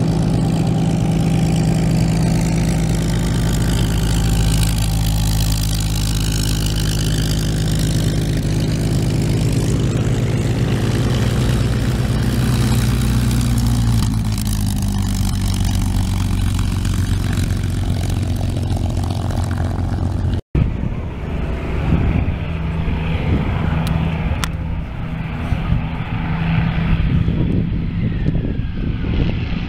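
WWII fighter planes' piston engines running steadily as the planes taxi, a red-tailed P-51 Mustang among them. The sound drops out briefly about twenty seconds in, then another warbird's engine runs more unevenly.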